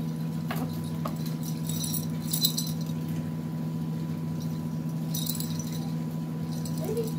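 A cat batting at a dangling string toy on a cat tree, with light jingling and rattling in two spells, one from about a second to nearly three seconds in and another around five seconds in. A steady low hum runs underneath.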